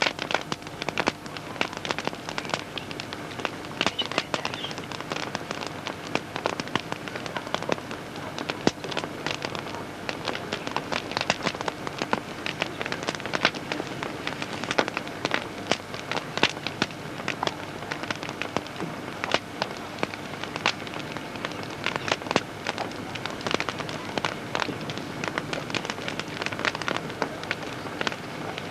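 A campfire crackling and popping, a dense irregular stream of sharp snaps over a low hiss, with a faint steady hum underneath.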